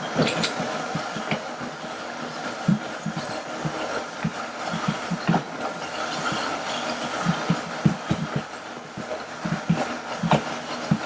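High-powered blender running on a thick, chunky red pepper dip with no added water, while a tamper pushes the mix down into the blades. Steady motor noise with frequent irregular low knocks.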